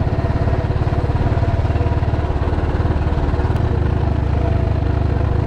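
Motorcycle engine running steadily under way, its rapid firing pulses heavy in the low end.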